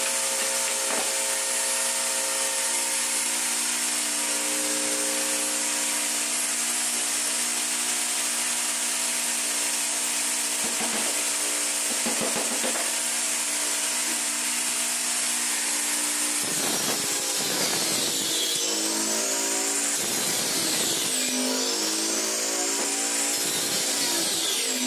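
A power tool's motor running steadily with a constant hum and whine. From about two-thirds of the way through, the sound starts to sweep and waver.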